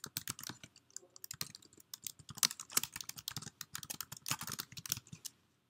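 Computer keyboard typing: a quick run of keystrokes entering an email address, stopping shortly before the end.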